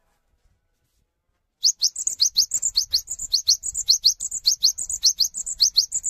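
Cinereous tit (gelatik batu) singing a fast, rolling series of short, high, rising whistled notes, several a second. It starts about a second and a half in and keeps going.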